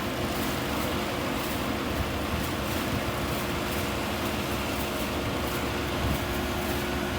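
Rice combine harvester running steadily, a constant machine noise with a steady hum.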